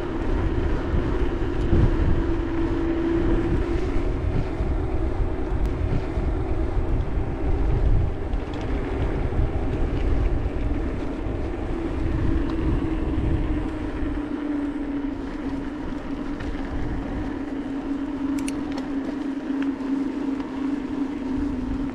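Mountain bike riding down a dirt trail: a continuous low rumble and rattle from the tyres and bike over the ground, with a steady hum that slowly drops in pitch and a few sharp clicks.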